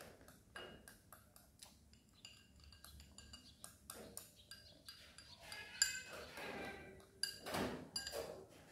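Chopsticks clicking and scraping against a ceramic rice bowl as rice is shovelled from the bowl held to the mouth: faint, scattered small clicks with a few louder knocks later on.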